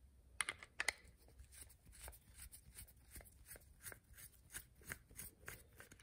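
Screwdriver backing out the small screws on the bottom of a removed motorcycle ignition switch: a run of faint light clicks, about three a second, with two sharper clicks in the first second.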